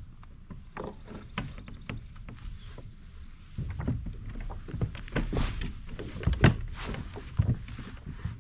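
Knocks, scrapes and thumps of a plastic fishing kayak being pushed off a grassy lake bank and climbed into, coming thicker about halfway through, with the loudest thump a little after six seconds in.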